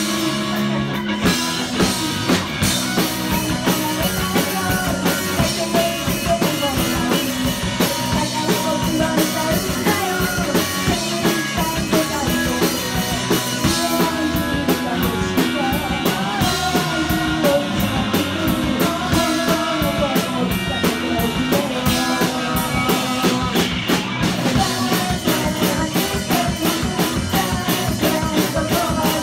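Live rock band playing loud and steady: a woman singing into a microphone over bass, electric guitar and a drum kit, with regular drum hits throughout.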